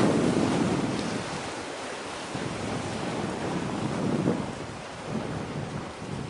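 Wind buffeting the microphone in gusts over a steady rush of wind and sea. The gusts are strongest at the start, ease off, and come back briefly about four seconds in.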